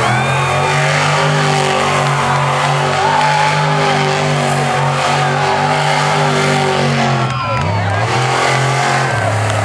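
Monster truck engine running hard at high, steady revs. It lets off briefly about seven seconds in, then picks up again, with crowd voices chattering over it.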